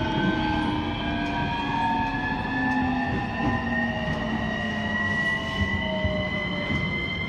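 Inverter whine of a JR E231 series electric train heard on board, over the rumble of the running train. Its tones change in pitch steadily as the train runs, the main ones rising slowly while a lower one falls.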